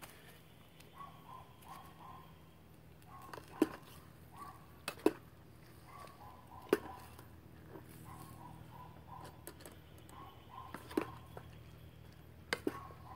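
Metal spoon scraping and clinking against a stainless steel canteen cup as fried rice is stirred, with a handful of sharp clinks. A dog barks in repeated short runs in the distance.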